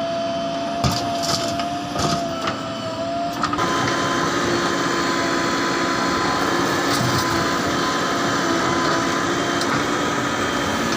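JCB 3DX backhoe loader's diesel engine running under hydraulic work, with a few knocks in the first three seconds, then revving up and holding a louder, steady pitch from about three and a half seconds in.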